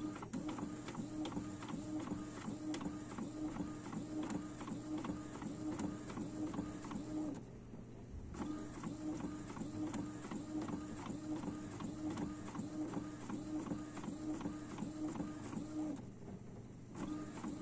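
Epson XP-series inkjet printer printing a page: the print-head carriage shuttles back and forth in fast, rhythmic passes. It stops briefly about seven and a half seconds in and again near the end, then starts up again.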